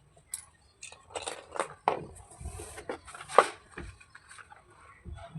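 Slate pencils being handled: irregular clicks, taps and scrapes, with a brief rubbing sound in the middle and the sharpest click about three and a half seconds in.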